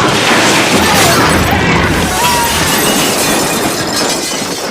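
Bar-brawl fight-cloud sound effect: a dense, continuous jumble of crashes, smashing and shouting voices, easing off slightly near the end.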